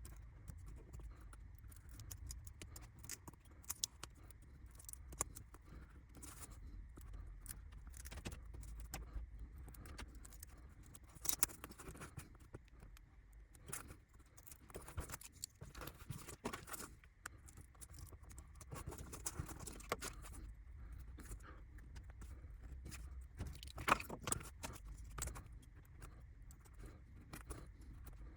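Clear plastic glazing sheet being cut by hand around small laser-cut window frames: irregular small snips, clicks and crinkles of the plastic, with a sharper click about 24 seconds in.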